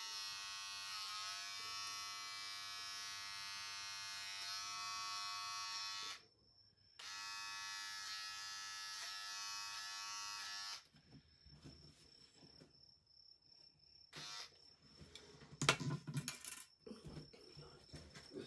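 Electric hair clippers running with a steady buzzing hum as they cut hair. They stop for about a second, run again, then switch off about two-thirds of the way through. After that there are only faint handling sounds and one sharp knock near the end.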